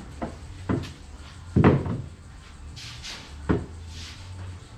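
Four dull knocks and thumps of someone moving about and handling things in a ski boat's cockpit, the loudest about a second and a half in, with some light rustling around the third second.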